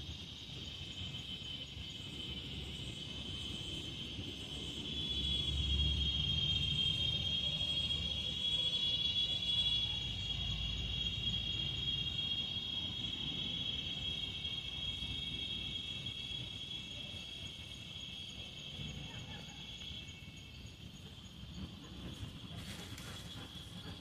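Steady high-pitched chorus of insects chirring, swelling about five seconds in and easing off in the last few seconds, with a low rumble underneath for several seconds.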